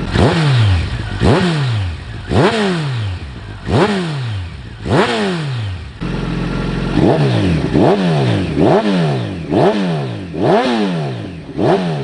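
Kawasaki ZX-14R inline-four engine of a Campagna T-Rex 14R, fitted with a Muzzy M10 full exhaust system, being revved in short throttle blips that are kept to moderate revs. Each blip shoots up sharply and falls back toward idle over about a second. There are five blips at an even pace, then after a brief pause a quicker run of six.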